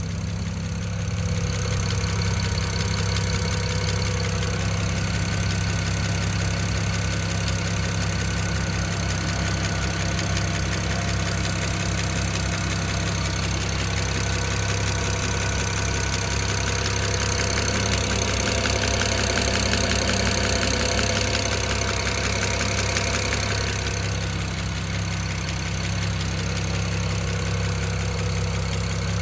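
BMW N54 3.0-litre twin-turbo inline-six idling cold, with a steady, rapid ticking over the engine note. It is a cold-engine tick that the owner says is there only while the oil is below about 47 °C and vanishes above 2000 rpm or once warm; the cause is unknown to him.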